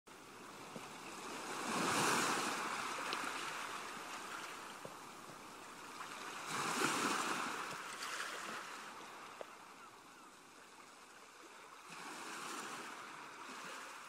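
Ocean waves washing, rising and falling in three slow swells about five seconds apart.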